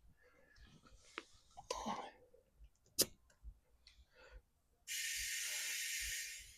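Compressed air hissing steadily for about a second and a half through an air chuck, inflating a car tire from about 34.5 psi; before it, a sharp click and some light handling noise.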